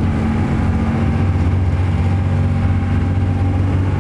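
Boat engine running steadily at sea, a low even drone.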